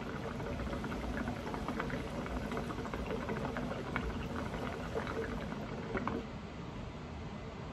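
Hookah water bubbling as smoke is drawn through the base: a steady gurgle with small pops that stops about six seconds in.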